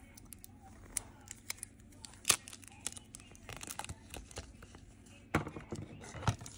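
Plastic PET tape from a Fayware roll crinkling and crackling as it is handled and peeled, in a string of sharp crackles and clicks. The loudest crackle is about two seconds in, with a busier run near the end.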